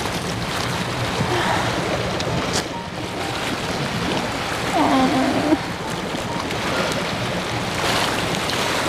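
Steady wash of sea surf and wind on the microphone, with a short pitched vocal sound about five seconds in.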